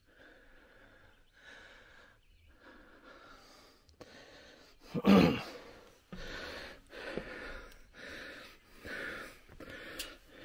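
A man breathing hard and fast, out of breath from climbing the long stairs of a fire lookout tower, with a loud voiced exhale about five seconds in. The breaths come about once a second, quicker in the second half.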